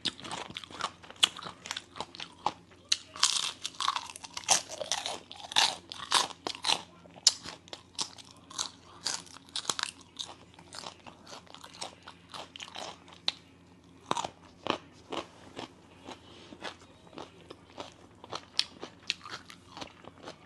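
Close-up eating sounds: crisp, irregular crunching bites and chewing of a Thai pounded salad with raw vegetables, densest in the first several seconds, then sparser.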